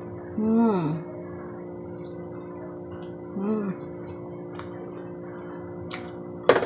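A woman's voice making two short wordless sounds while eating pizza, the first falling in pitch, over a steady electrical hum, with a sharp click near the end.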